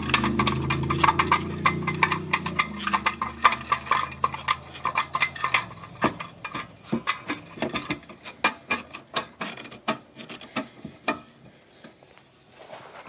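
Car jack being handled and its screw turned by hand at the jacking point: dense, irregular metal clicks and clinks that thin out over the second half. A low hum fades out about five seconds in.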